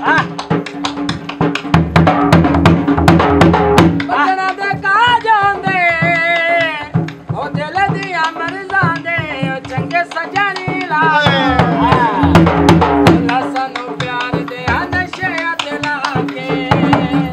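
Folk dance music: fast hand-drum strokes under a singer's wavering, ornamented melody that comes and goes in phrases, over a steady held note.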